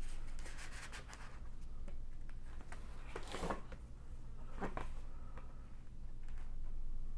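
Handling noise from a ring-binder manual: a plastic page sleeve and paper pages rubbed and rustled as a 5.25-inch floppy diskette is slid into the sleeve. There are a few short scrapes, the loudest about three and a half seconds in.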